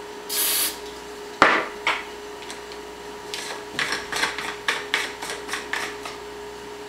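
A short spray of Static Guard aerosol into the potato gun's combustion chamber, then a sharp knock and a run of quick clicks and knocks as the gun's cap is worked and twisted shut with the fuel inside.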